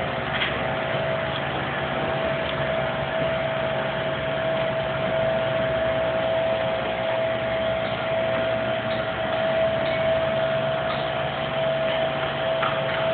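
Construction machinery engines running steadily, a constant whining tone over an even mechanical noise, with no change in pace.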